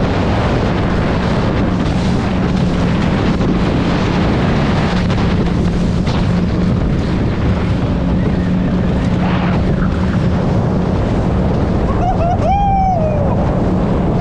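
Suzuki DF100 four-stroke outboard running steadily at speed, with wind on the microphone and water rushing against the hull as the boat crosses chop. About twelve seconds in, a short high voice call rises and falls.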